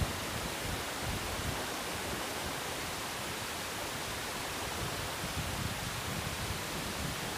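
Steady rushing of sea waves washing against the rocks of a harbour breakwater.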